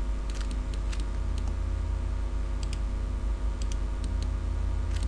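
Scattered light computer clicks, a dozen or so at irregular intervals, over a steady low electrical hum.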